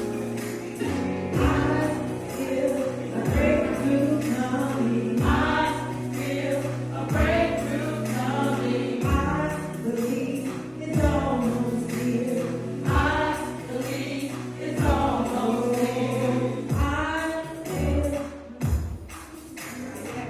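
A choir singing a gospel worship song over band accompaniment, with sustained bass notes and a strong beat about every two seconds.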